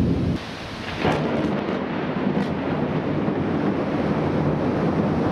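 Thunderstorm: a sharp clap of thunder about a second in, followed by a long rumble over steady rain.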